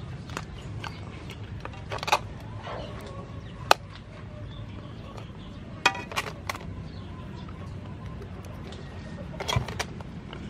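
Metal tongs clicking and scraping against a steel platter and a frying pan as cooked lobsters are lifted and set down. There are a few sharp clinks, the sharpest a little before halfway, and a quick rattle of clicks just past the middle.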